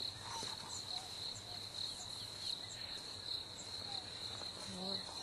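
Insects trilling steadily on one high, continuous note.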